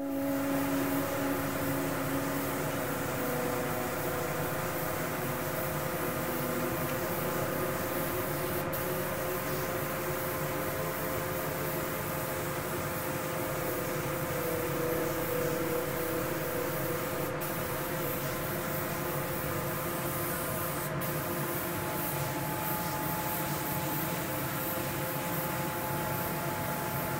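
Spray-painting equipment running in a paint booth: a steady hiss of air under a hum of several steady tones, unbroken throughout.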